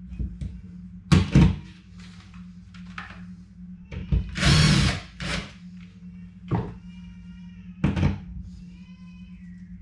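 Cordless drill-driver run in one short burst against the wall about halfway through, between clicks and knocks of the tool being handled and set in place. A fainter drawn-out whine follows near the end.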